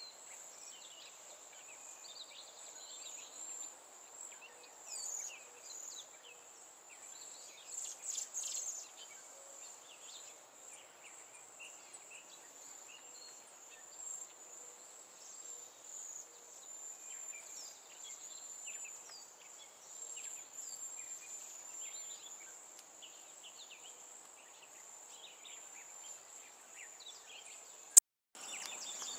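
Outdoor nature sound: a steady, high-pitched insect trill runs on while small birds give many short chirps and calls. Near the end the sound cuts off after a sharp click.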